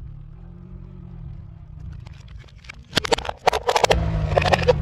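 A car tyre crushing a small hollow plastic toy bin, giving a quick cluster of sharp plastic cracks and snaps about three seconds in, over the car's engine running low. The engine grows louder near the end, with a few more crackles.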